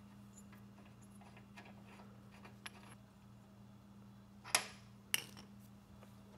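Socket wrench working a spark plug into a small mower engine: scattered faint clicks, then two sharper clicks about four and a half and five seconds in, over a steady low hum.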